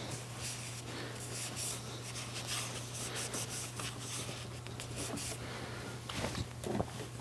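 Cloth shop rag rubbing and wiping over a metal part in soft, irregular strokes, over a steady low hum.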